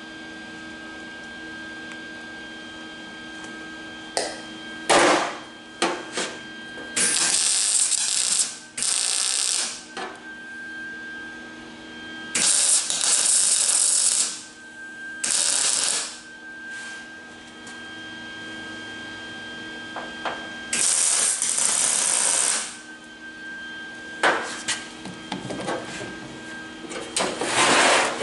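Welder laying short tack welds along the steel door skin: repeated bursts of crackling, sizzling arc noise, each a second or two long, with shorter spits in between. The tacks join the skin to the door frame where the spot welds did not hold.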